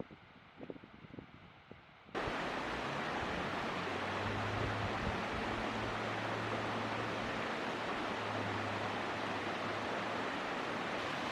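A steady rushing noise, spread evenly from low to very high, starts abruptly about two seconds in with a low hum beneath it. Before it there are only a few faint low thumps.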